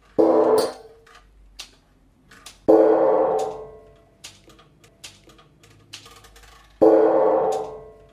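Three struck musical notes, well spaced, each starting sharply and ringing out before fading, with faint short clicks between them.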